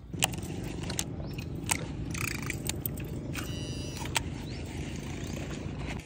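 A boat's motor running with a steady low rumble, with a few sharp clicks and rattles over it.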